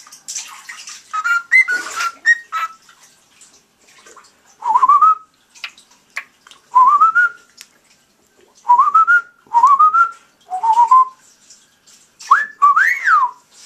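Cockatiel chirping a few short notes, then whistling a series of short rising, slightly warbling whistle phrases, about six of them with pauses between.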